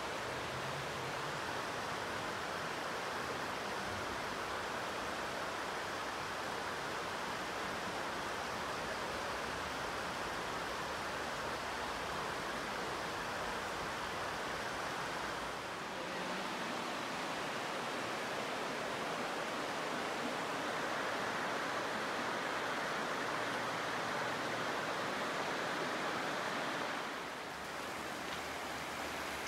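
Steady rush of a shallow river running over rocky riffles, dipping briefly twice.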